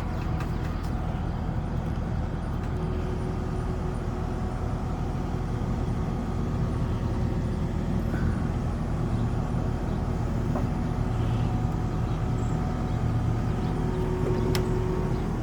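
Kubota SVL-75 skid steer's diesel engine running steadily while its forks lift boards, with a thin steady whine that comes and goes.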